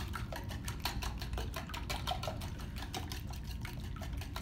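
Wire whisk beating raw eggs with spices in a bowl: a rapid, fairly even run of light clicks as the wires strike the bowl, with wet sloshing of the egg mixture.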